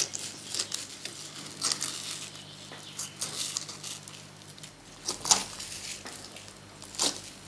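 Scalpel cutting and scraping flesh away from inside a perch's skin: scattered small scrapes and crackles, with two louder ones about five and seven seconds in.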